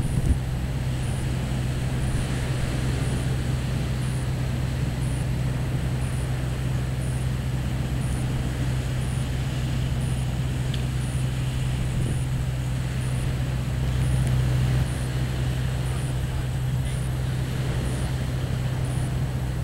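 Steady low rumble of wind on the microphone, with small waves washing onto the sand.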